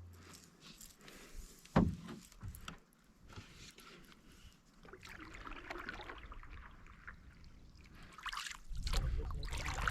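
Canoe paddling: paddle strokes swishing and dripping in the water, louder in the second half, with a single sharp knock about two seconds in.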